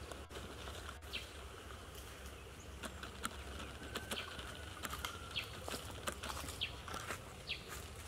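Faint outdoor ambience: short high bird chirps every second or so, a few sharp clicks, over a steady low hum.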